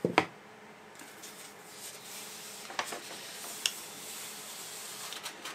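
A rolled paper print being pulled out of a cardboard tube and unrolled: soft paper rustling with a couple of light clicks, after a sharp knock just after the start.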